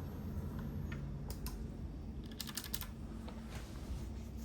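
Keys being pressed on a mechanical keyboard with bare Cherry MX Blue switches and no keycaps fitted, giving short bursts of sharp clicks a few times.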